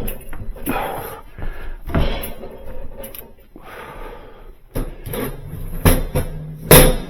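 Irregular knocks and clunks with stretches of scraping, from hands and tools working on a built-in refrigerator cabinet; two sharp knocks near the end are the loudest.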